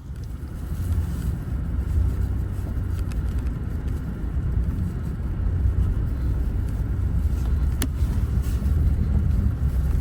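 Small Nissan pickup truck driving on a snowy road with chains on all four tyres: a steady low rumble of engine and tyres, with one sharp click near the end.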